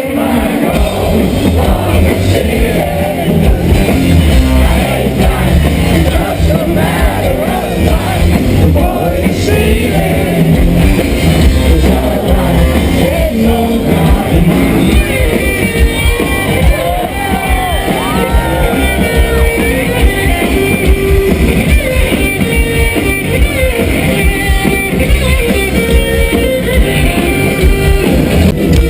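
Rock band playing live, with a singer over guitars and drums, loud and heavy in the bass.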